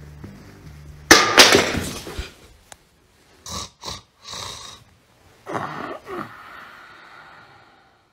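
A man snoring loudly in an exaggerated way. There is one loud, rough snore about a second in, then a few short breathy puffs. A second snore follows, and its exhale falls in pitch and trails off near the end.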